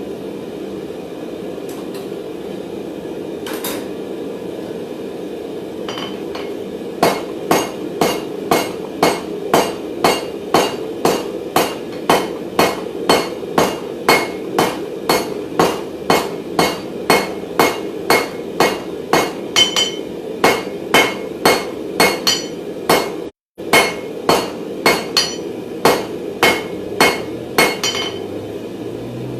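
Hammer blows on hot round mild steel bar on an anvil, drawing the bar out to lengthen it. After a few seconds with only a stray blow, strikes come steadily about two a second, each ringing brightly, over a steady low roar.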